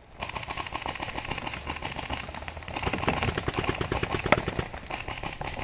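Paintball marker firing a long, rapid string of shots, a dense even rattle of pops that starts just after the beginning and stops near the end.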